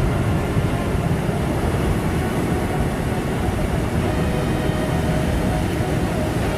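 Steady rumble of heavy surf and wind, with a few faint steady engine-like tones underneath.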